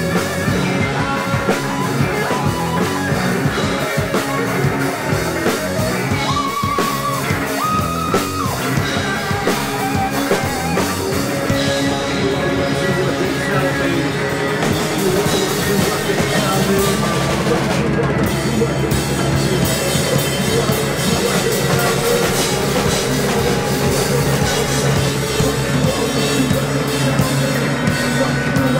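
Rock band playing live without vocals: distorted electric guitars, bass guitar and a drum kit.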